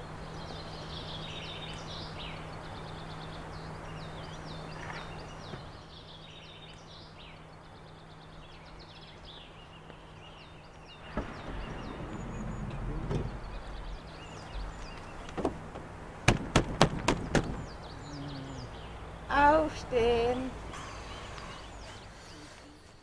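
Birds chirping over a faint steady hum, then, about sixteen seconds in, about six sharp knocks in quick succession.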